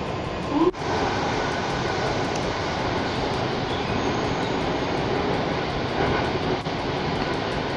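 Mumbai Metro train running: a steady rushing rail noise, with a short rising tone and a momentary dropout just under a second in.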